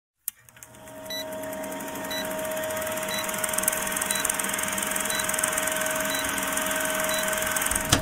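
Old film projector running with a steady whir, hum and crackle, with a short high blip once a second ticking off the countdown leader. It fades in over the first second and cuts off suddenly with a brief louder burst at the very end.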